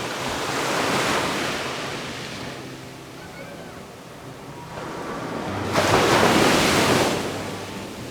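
Ocean waves breaking on a beach: one wave swells to a peak about a second in and washes back, then a louder wave breaks suddenly near six seconds and washes up for about a second before fading.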